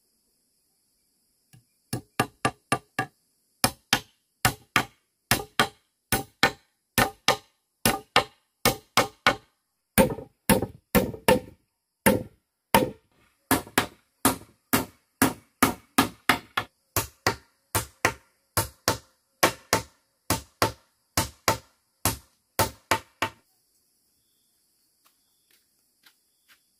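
A tool striking bamboo in a steady run of sharp chops, a little over two a second. It starts about two seconds in and stops a few seconds before the end.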